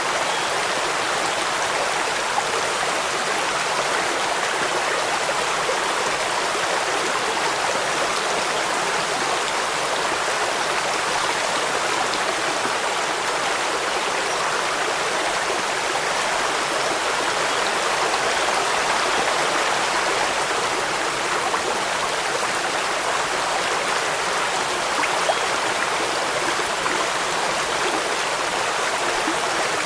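Steady rushing water of a stream and waterfall with rain falling, an even hiss that does not change.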